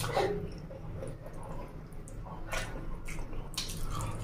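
Wet squishing of a hand mixing rice into chicken-feet curry gravy and lifting a mouthful, with a few short, sharp wet clicks, the loudest about two and a half and three and a half seconds in.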